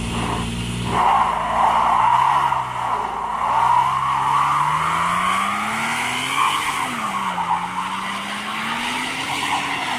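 Toyota 4Runner doing a burnout: its tyres squeal in a long, wavering screech that grows loud about a second in, while the engine is held at high revs, its note rising, dipping once and rising again.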